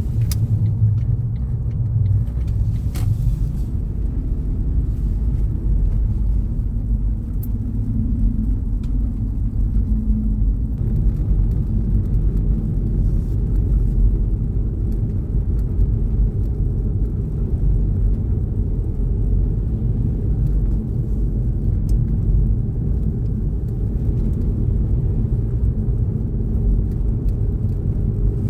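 Steady low rumble of a car being driven, tyre and engine noise with no pauses, broken only by a few faint clicks.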